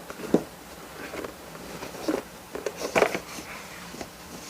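An album box and its contents being handled by hand as it is opened: scattered light knocks, taps and rustles of cardboard and paper, the sharpest about a third of a second in and about three seconds in.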